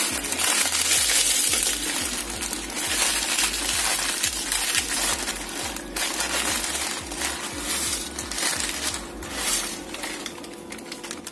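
A block of Maggi instant noodles crushed by hand inside its plastic packet: a dense run of crackling and crinkling from the wrapper and the snapping dry noodles, thinning out near the end.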